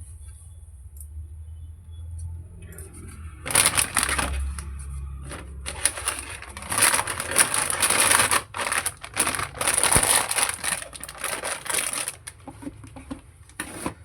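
Graphics card packaging being handled: rustling and crinkling in irregular loud bursts for about eight seconds, starting a few seconds in, then a few lighter clicks. A steady faint high hiss and a low hum underlie it.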